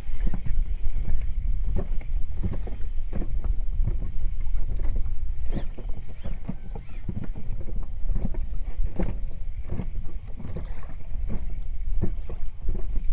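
Small waves slapping and knocking against the hull of a small boat, irregularly, several times a second, over a steady low wind rumble on the microphone.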